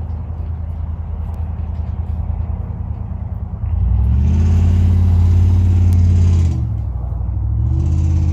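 A motor engine running steadily with a low hum. It swells much louder about four seconds in, eases off, then rises again near the end.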